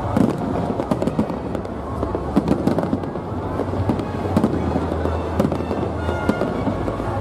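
Aerial firework shells bursting in quick, overlapping succession: a continuous run of bangs and crackling over a low rumble.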